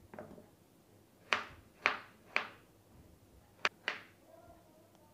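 Kitchen knife chopping peeled potatoes on a wooden cutting board, the blade knocking through onto the board: three chops about half a second apart, then two more in quick succession.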